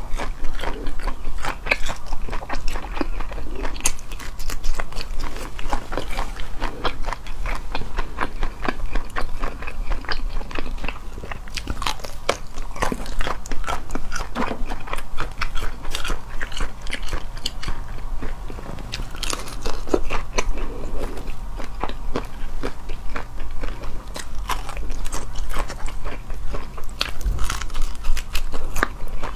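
Close-miked biting and chewing of whole shell-on prawns, the shells crunching in many quick, irregular crackly clicks.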